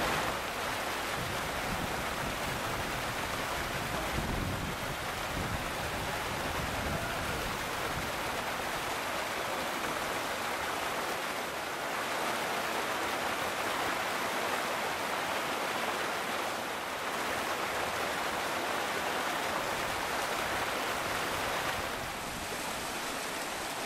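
Small mountain stream rushing over rocks, a steady rush of water, with low wind rumble on the microphone through the first several seconds.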